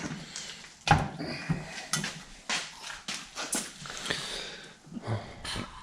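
Irregular knocks and clunks of a metal cylinder head being handled and turned over on a workbench, the loudest about a second in.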